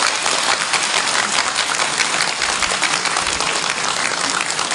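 Dense, steady applause from a large crowd of many people clapping.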